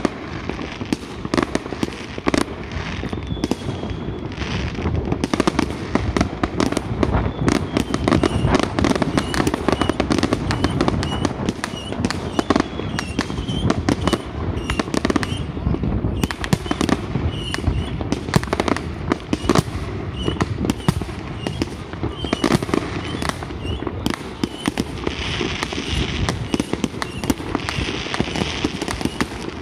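Fireworks display: a dense, unbroken barrage of aerial shells and rockets bursting, many rapid bangs and crackles piling over one another.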